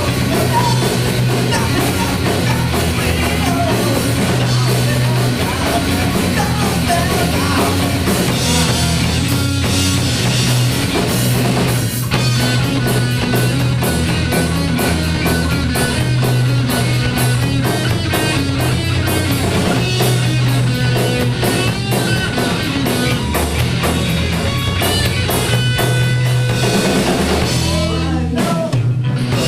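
Loud rock music from a live band: drum kit and driving bass and guitar, with some singing. It briefly drops out about a second before the end, then comes back in.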